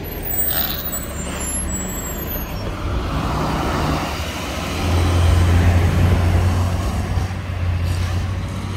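A school bus engine running as the bus pulls away from the stop and drives off. It makes a steady low drone that grows louder about five seconds in, then eases near the end.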